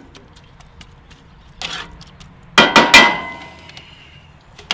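A spatula knocked against a cast-iron skillet three times in quick succession about two and a half seconds in, giving sharp metallic clangs with a short ring. A shorter scrape comes just before.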